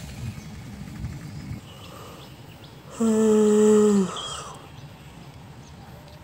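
A man's voice: one drawn-out vocal sound at a steady pitch, about a second long, starting about three seconds in and falling in pitch as it ends. Faint outdoor background noise with a low rumble fills the rest.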